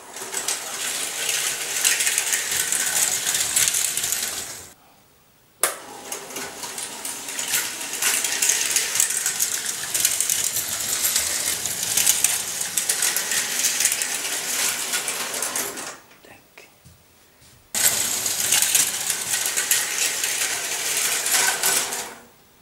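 Tinplate O-gauge model electric locomotive running on three-rail tinplate track, a loud metallic clattering rattle of wheels and motor. It stops abruptly about four and a half seconds in, starts again a second later, dies away near sixteen seconds and starts again about two seconds after that.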